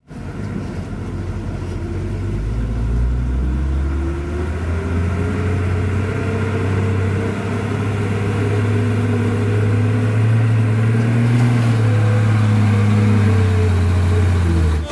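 Loaded cargo truck's diesel engine straining under heavy load as it pushes through deep mud, revs climbing about two seconds in and then held high at full throttle, with black smoke from the exhaust.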